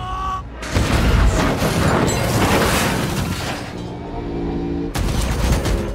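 Film battle sound effects over a music score: a sudden loud explosion that rumbles on for about three seconds, a held musical chord, then another sudden blast near the end.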